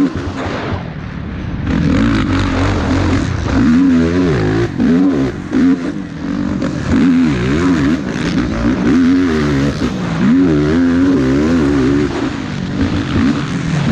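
Yamaha YFZ450R racing quad's single-cylinder four-stroke engine revving hard and backing off over and over, its pitch rising and falling with the throttle several times a second.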